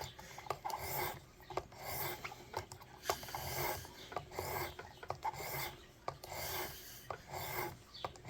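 600-grit sharpening stone on a Work Sharp Precision Adjust being drawn back and forth across a folding knife's steel edge: repeated rasping strokes, about one to two a second, with small clicks between strokes, refining the edge.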